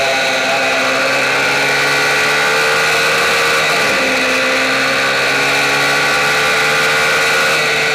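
Onboard sound of a MiniGP racing minibike's engine running hard at steady high revs, with a brief dip in pitch about four seconds in before it settles again.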